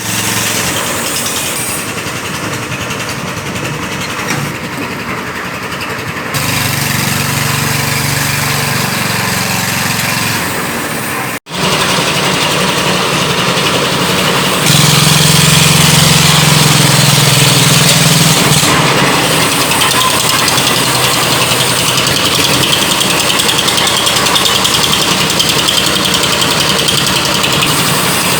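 Engines of construction machinery running steadily, with a low engine hum that swells at times; the sound breaks off for an instant about eleven seconds in.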